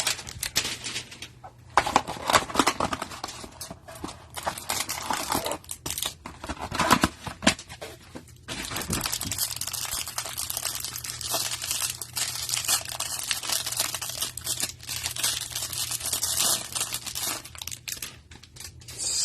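Packaging of a Panini Prizm hanger box of trading cards being torn open and crinkled by hand, in irregular crackling bursts that become nearly continuous from about eight seconds in.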